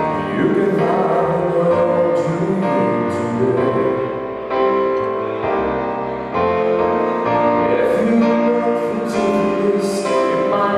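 Live band playing a slow ballad, an instrumental passage of sustained keyboard chords over electric bass and drums.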